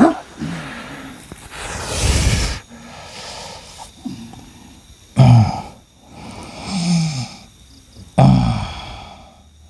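Men grunting and straining with short, hard, falling grunts, about five in all; the loudest and most sudden come about five and eight seconds in. A long noisy rush of breath or air comes about two seconds in.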